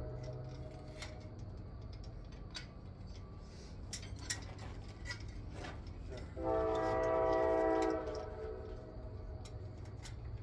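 A horn sounding one long, steady blast of about a second and a half, a little past the middle, over a steady low rumble and scattered light knocks.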